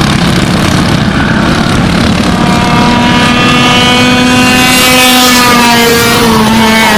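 Four-stroke Briggs & Stratton Animal racing go-kart engines running at high revs. One kart comes close, loudest about five seconds in, and its engine note drops in pitch about a second later as it passes or lifts for a corner.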